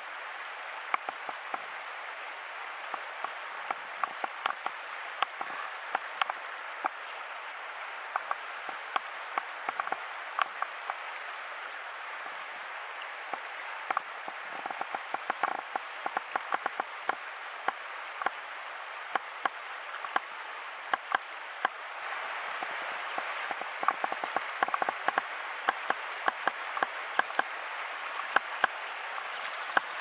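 Rushing water of a shallow, rocky stream riffle: a steady hiss with many sharp ticks and splashes scattered through it. The rush grows a little louder about two-thirds of the way in.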